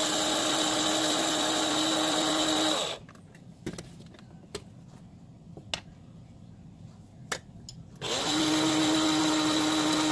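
Electric grinder grinding coriander seeds, running steadily with a constant hum, then stopping about three seconds in. A few light clicks come during the pause, and it starts again about eight seconds in.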